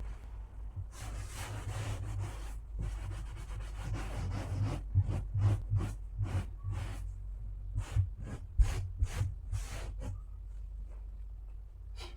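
Damp cloth wiping a dresser surface in a series of short rubbing strokes, over a steady low hum.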